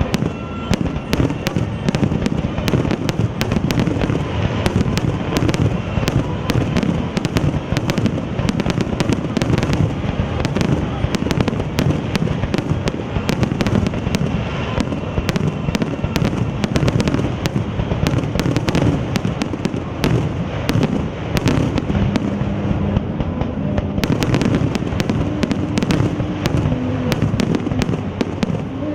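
Fireworks: a dense, unbroken barrage of aerial shells bursting and crackling, many reports a second without let-up.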